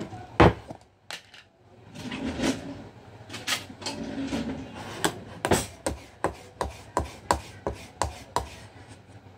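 A metal seasoning tin set down hard on the counter with one heavy knock, then handled, then a run of regular sharp taps, about three a second, as the top of the tin is worked open.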